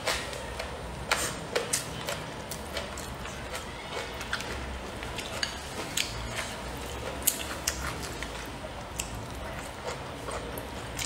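Eating sounds: chewing a mouthful of rice and braised pork, with scattered light clicks of wooden chopsticks against the bowl.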